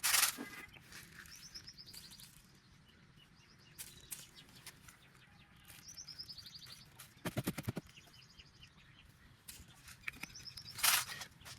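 Small birds chirping in short descending runs of high notes, twice. Between them come three brief bursts of rapid fluttering, taken for wing flapping: at the start, about halfway and near the end.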